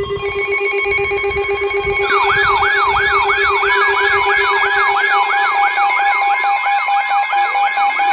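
Electronic alert tones: a steady pulsing tone, joined about two seconds in by a fast rising-and-falling siren sweep repeating about three times a second over steady high tones.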